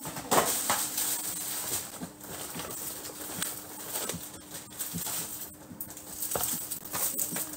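Shopping bags rustling and crinkling as they are handled and unfolded, in many short irregular crackles, over a faint steady hum.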